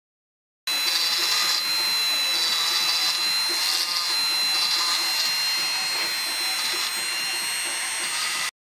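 Handheld rotary tool running with a steady high whine, its small bit grinding on a decorated bottle's surface, the grinding swelling in short patches. It starts abruptly just under a second in and cuts off suddenly near the end.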